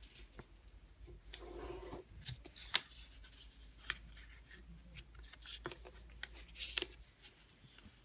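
Sheet of origami paper being folded and creased by hand on a mat: faint rustling and rubbing, with a few sharp little clicks and taps as folds are pressed down.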